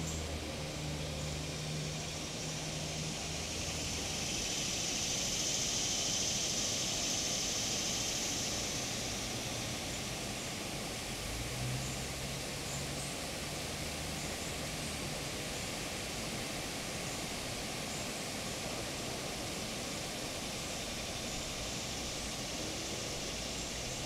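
Cicada buzzing in the trees, one call swelling to its loudest about six seconds in and fading away by about ten seconds, over a steady high insect hiss. A low hum comes and goes near the start and again about twelve seconds in.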